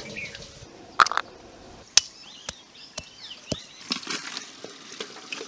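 A metal slotted spoon knocking and scraping against a metal bowl and cooking pot: a few sharp clinks, first about a second apart, then about every half second, with a brief bout of scraping near the end.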